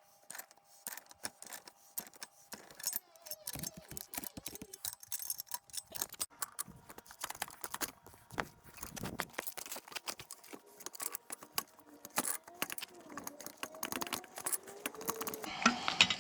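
Irregular light metallic clicks and clinks of hand tools and small tractor parts being handled and fitted.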